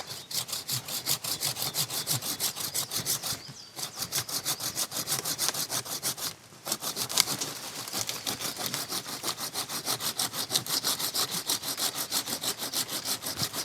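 Hand saw cutting through a rhododendron stem in quick, even back-and-forth strokes, with two brief pauses about four and six and a half seconds in.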